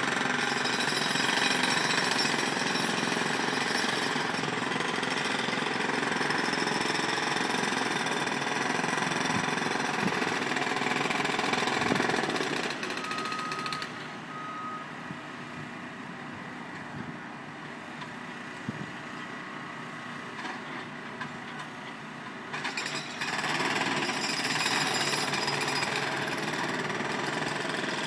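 A jackhammer hammering continuously, heard from about 150–200 feet away and many floors up. It stops a little before halfway through. In the lull a construction vehicle's reversing alarm sounds two beeps, and the jackhammer starts again about ten seconds later.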